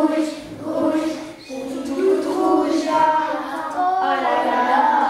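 High voices singing a song together, with long held notes.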